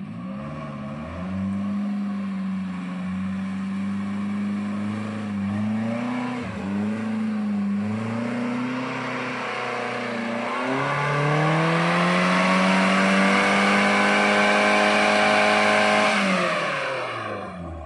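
Small off-road 4x4's engine revving hard under load as it crawls uphill on a muddy track. The revs waver up and down for the first ten seconds, then climb steadily for about five seconds and fall away near the end.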